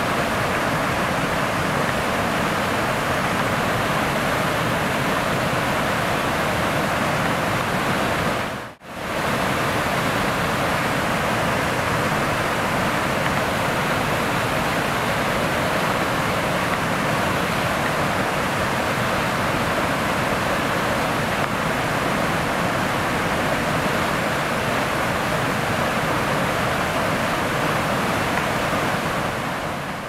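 A low, wide waterfall pouring over a rock ledge makes a steady rush of white water, broken by one brief dropout about nine seconds in.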